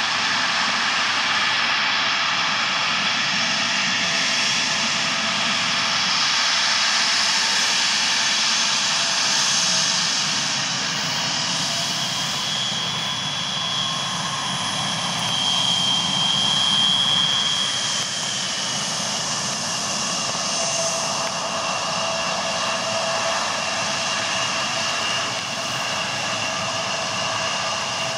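The twin rear-mounted GE CF34-8C turbofans of a Bombardier CRJ-700ER running at low taxi thrust, a steady jet roar with a high engine whine over it. The whine grows stronger around the middle and then settles slightly lower in pitch.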